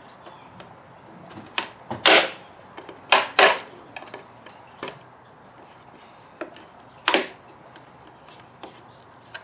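Plastic parts of a car side-mirror assembly being handled and pried at a retaining tab: a series of sharp clicks and knocks. The loudest come about two seconds in, as a pair about three seconds in, and once near seven seconds.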